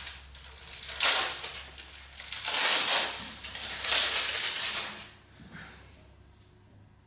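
Crinkling and rustling from exhaust heat-protection material and its packaging being handled, in three bursts, the last one longer. It dies away about five seconds in.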